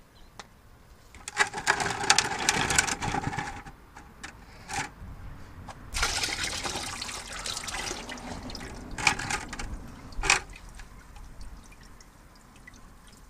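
Liquid pouring and splashing in two long spells, with a few short splashes between and after.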